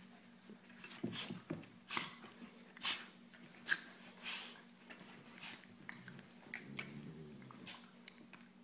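A Norwegian Elkhound and a golden retriever play-wrestling: a string of short, sharp breathy huffs and mouth noises about once a second, with a low growl about seven seconds in.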